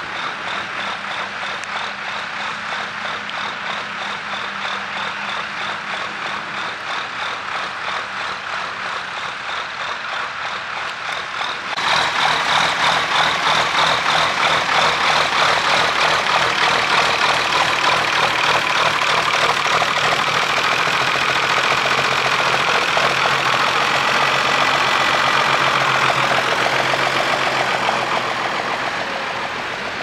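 Ford 8210 tractor's six-cylinder diesel engine working under load pulling a plough. It is heard at a distance at first, then much louder and close up from about twelve seconds in, with the engine note shifting partway through and easing off near the end.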